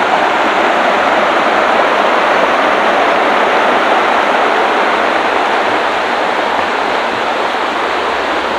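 River water rushing over rocks, a loud, steady noise without any rhythm or change.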